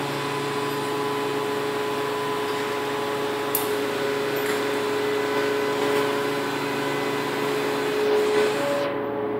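Truck-mounted loader crane running while lifting a stack of test weights on chains: a steady mechanical hum with a whine over it. A faint click about three and a half seconds in.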